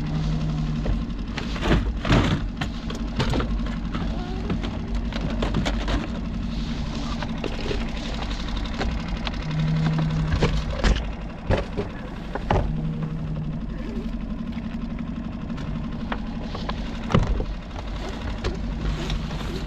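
Irregular knocks, clicks and clatter of fishing tackle being rummaged in a boat's storage hatch, over a steady low engine hum.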